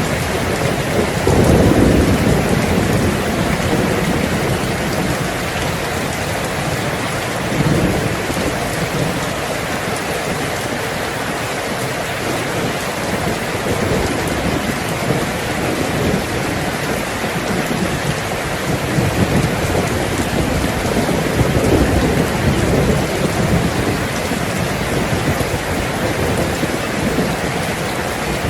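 Heavy rain drumming steadily on a tin roof while thunder rumbles. The loudest roll comes about two seconds in, and weaker rumbles follow later.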